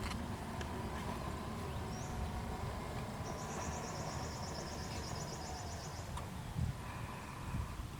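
Outdoor nature ambience: a steady low rumble, with a rapid, evenly pulsed high trill from a small animal lasting about three seconds in the middle.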